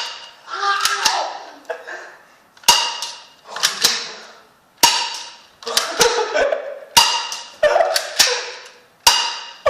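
BB gun firing repeatedly: about nine sharp shots spaced roughly a second apart, each followed by a short fading ring.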